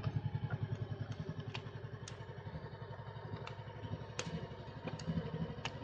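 Honda Shadow Sabre 1100 V-twin engine running at low road speed, a steady pulsing rumble, with a few sharp ticks scattered through.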